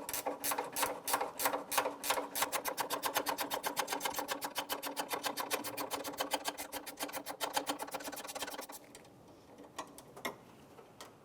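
A 10 mm ratchet clicking quickly and steadily as a hood latch mounting bolt is turned. The clicking speeds up about two seconds in and stops about nine seconds in, followed by a few single clicks.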